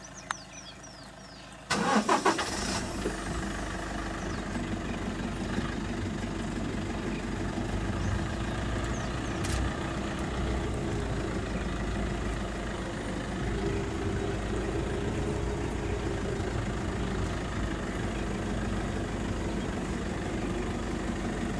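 A car engine cranks and starts about two seconds in, then runs steadily.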